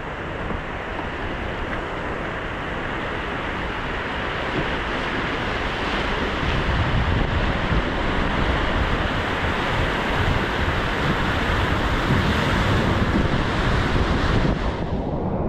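Whitewater rapids rushing, a steady wash of water noise that grows louder partway through as the boat runs into the rough water. Wind buffets the microphone with an uneven low rumble.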